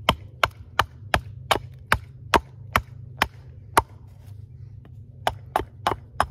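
Hatchet chopping into a split wedge of soft tulip poplar, hollowing out its inner corner: quick sharp strikes about two and a half a second, a short pause about four seconds in, then a few more strikes.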